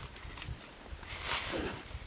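Goats moving about: soft hoof steps, then a short hissing burst about a second in.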